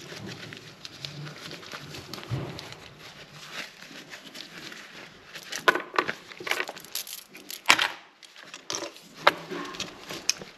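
Hands rummaging through a jewellery box: rustling of fabric pouches, with a run of sharp clicks from the jewellery and box in the second half, the loudest about three quarters of the way through.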